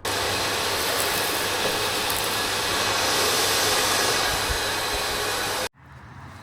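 Panther 1700 W gutter vacuum running at full suction: a loud, steady rush of air and motor noise that cuts off sharply near the end.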